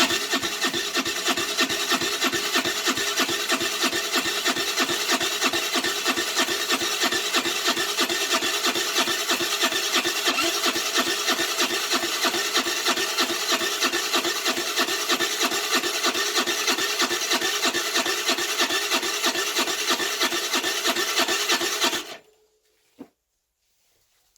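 Electric starter cranking a Baotian Tanco's 50cc four-stroke engine in a long, evenly pulsing run of about 22 seconds without the engine catching, then stopping suddenly. The engine is flooding: the owner finds the spark plug wet after a few cranks and blames a fouled carburettor.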